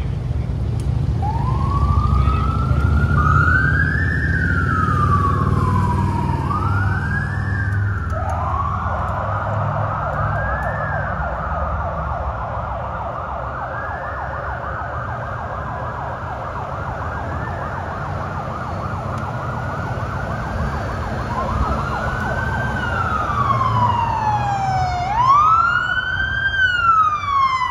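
Police sirens of a vice-presidential motorcade wailing as it passes, several sirens overlapping in rising-and-falling sweeps over the low rumble of vehicle engines. Near the end one siren grows louder and cycles faster, about one sweep every second and a half.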